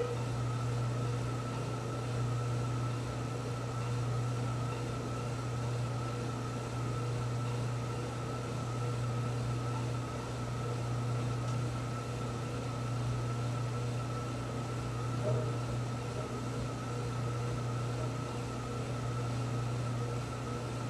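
Steady mechanical hum with a faint high whine running over it, unchanging throughout, like a household fan or appliance running.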